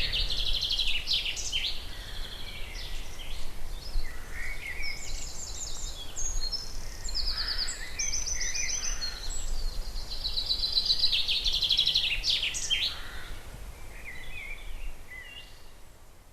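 Woodland songbirds singing: overlapping high, rapid trills and chirps, fading out over the last few seconds.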